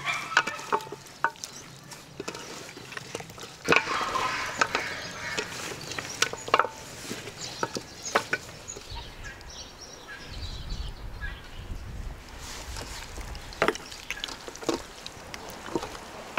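Raw whole chickens coated in marinade being squeezed and turned by hand in an enamel bowl: irregular wet slaps and squelches of skin on skin, with a denser run of them about four seconds in.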